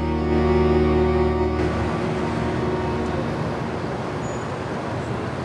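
Background music with sustained held chords, which stops about a second and a half in and gives way to a steady wash of city traffic noise.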